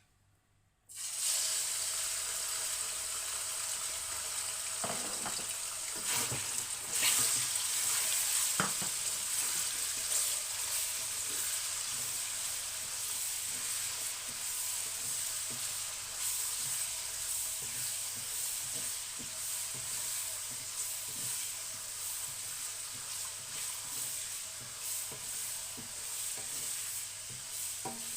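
Sliced chicken breast sizzling in hot vegetable oil in a frying pan. The sizzling starts suddenly about a second in and keeps up as a steady hiss, with a few knocks of a wooden spoon stirring.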